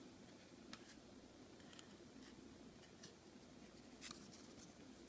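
Near silence, with a few faint ticks and scrapes of trading cards being slid and flipped in the hands, the most distinct about four seconds in.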